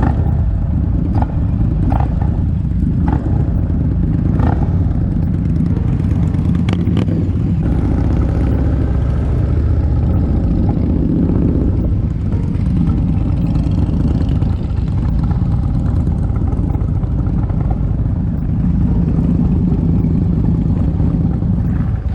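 Motorcycle engine running, loud and steady, with a few sharp clicks or knocks in the first several seconds.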